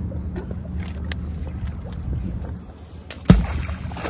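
A magnet-fishing magnet on a rope smacks into the water with a sharp splash about three seconds in, followed by a brief hiss of falling spray. A steady low hum runs underneath.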